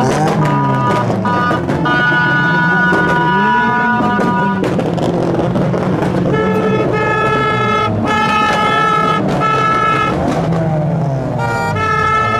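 Car engines revving, rising and falling in pitch, under several long held car-horn blasts, the longest about four seconds.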